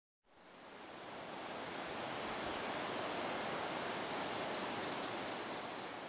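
Waterfall pouring off a rock bluff: a steady rushing hiss of falling water that fades in over the first second or two.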